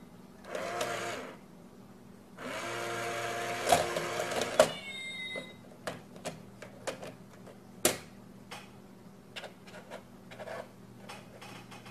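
Small electric motor of a coin-stealing cat bank toy whirring twice: briefly about half a second in, then for about two seconds from about two and a half seconds in. A short meow follows at about five seconds. After that comes a string of light taps and knocks as the cat paws at the box.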